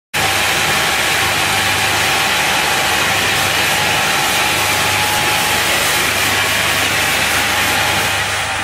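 PP plastic pelletizing extruder line running: a steady, even machine noise with a low hum and a thin steady whine.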